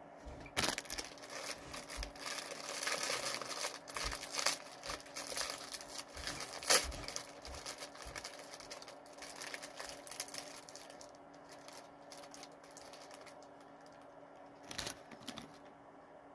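Clear plastic wrapper of a Hostess cupcake crinkling as it is unwrapped by hand. A dense run of crackles thins out after about eleven seconds, with one short crinkle near the end.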